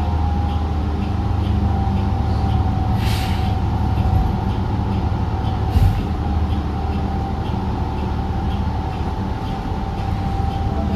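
2016 New Flyer XDE40 diesel-electric hybrid bus running, heard from on board: a steady low rumble under a steady high-pitched whine. Faint regular ticking comes about twice a second, with two short hisses about three and six seconds in.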